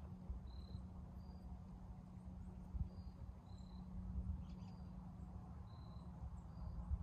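Quiet outdoor ambience: short high-pitched chirps repeating irregularly, a couple each second, over a steady low hum and a low wind rumble.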